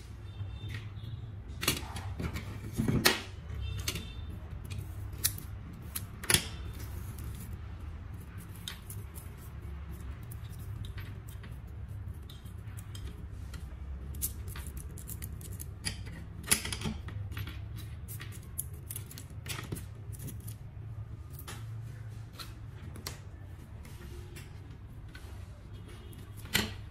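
Handling of a coaxial cable's braided wire shield: scattered light clicks, taps and rustles as the fine strands are pulled apart and twisted, over a steady low hum.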